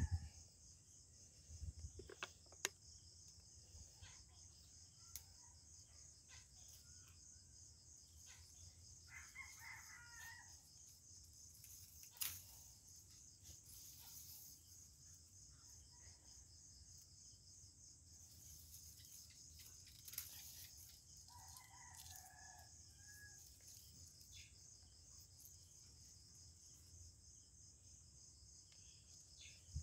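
A rooster crowing twice, faint, over a steady high chorus of crickets. A few sharp clicks, the loudest about twelve seconds in, as lemongrass stalks are cut.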